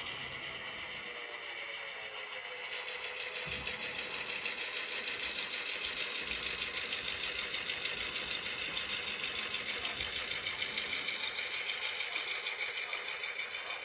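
HO scale model SW8 diesel switcher locomotive running on the track. A steady small-motor hum with a fast, even ticking that grows a little louder after the first few seconds.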